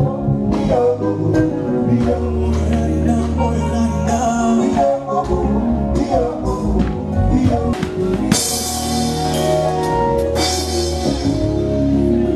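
Live band playing with a man singing over it: bass, drum kit and guitar, with cymbals washing through about two-thirds of the way in. A stage sound check.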